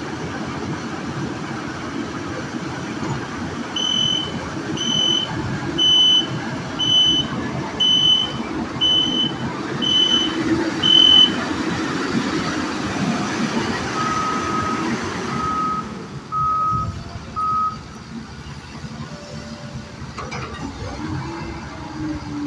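Heavy construction machinery running, with a high-pitched reversing alarm beeping about once a second, eight times. A lower-pitched backup alarm then beeps four times, and the engine noise drops off about two-thirds of the way through.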